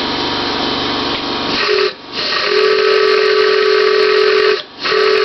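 Large wooden train whistle blown with compressed air through a trigger air nozzle, with a strong rush of air hiss throughout. After about a second and a half, a steady whistle note sounds in blasts: a brief one, then a long one, then another. The blasts are broken by two short gaps where the air is cut off.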